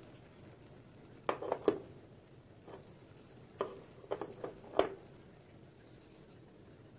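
Irregular sharp metallic clicks and clinks from a steel socket wrench and adapter being turned by hand on the threaded heating element of a boiler, backing it off slowly.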